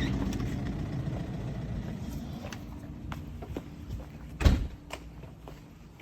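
A low steady hum slowly fading away, with a few light knocks and one loud thump about four and a half seconds in.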